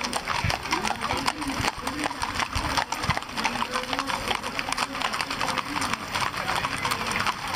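Hooves of many horses clip-clopping, a dense, irregular patter of sharp clicks, with people's voices talking underneath.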